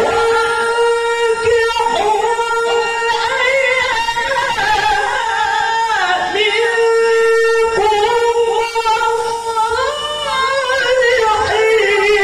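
Qur'an recitation (qiroah) by a male qari through a microphone: long, high held notes with ornamented melismatic turns. The melody steps lower near the end.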